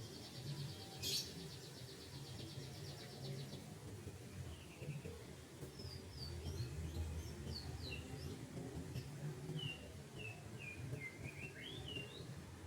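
Birds calling over a faint low background rumble. A rapid, high buzzing trill runs for the first few seconds, with a single sharp click about a second in. From about six seconds in comes a run of short, quick chirping notes.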